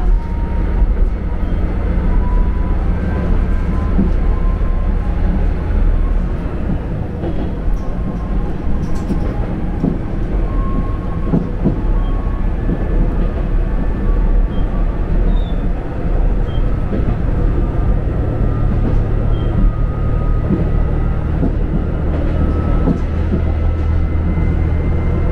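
Moka Railway diesel railcar running, heard from inside at the front of the car: a steady low engine drone with the wheels running on the rails and a few faint clicks. The low engine note grows stronger about eighteen seconds in.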